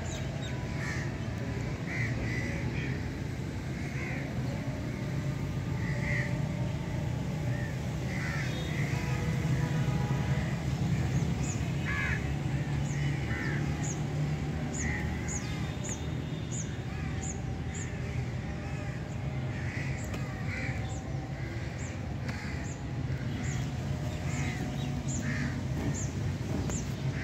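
Crows cawing again and again, with a second bird giving quick high chirps about twice a second from about halfway through, over a steady low hum.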